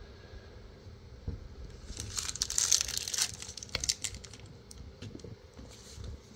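Thin plastic crinkling under the fingers, starting about two seconds in and lasting about a second and a half, followed by a few scattered clicks.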